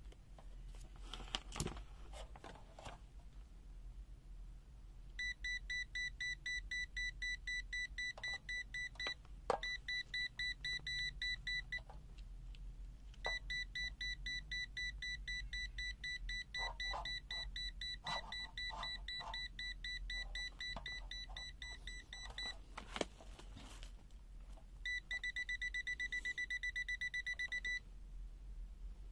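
Lomvum DM6S multimeter in non-contact voltage (NCV) mode beeping a high tone in rapid pulses, about four a second, as it senses the AC field of a live mains cable. The beeping stops and restarts a few times and near the end becomes a much faster, almost continuous beep, which is how the NCV indicator signals a stronger field. A few handling knocks come between the runs.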